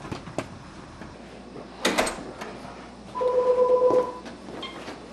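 A sharp thump about two seconds in, then a telephone ringing once with a steady electronic tone lasting under a second.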